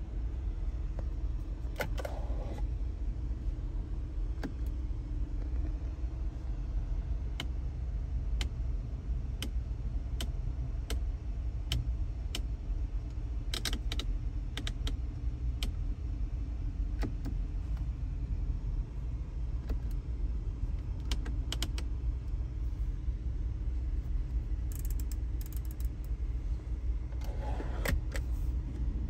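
Steady low hum inside a car cabin, with scattered sharp clicks and knocks of centre-console storage lids and trim being handled, a cluster of them near the end as a compartment is opened.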